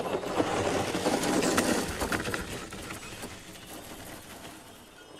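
Horse-drawn farm implement rattling and clattering as it is pulled along, loudest in the first two seconds and then fading away.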